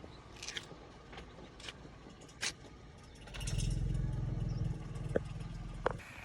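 A few faint scattered clicks and knocks, then about three and a half seconds in a low, engine-like rumble sets in for about two seconds before fading.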